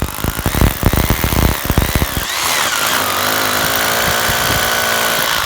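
Electric drill with a 10 mm bit boring a hole into the wall. For the first two seconds or so it runs with a rapid knocking, then settles into a steady motor whine that holds to the end.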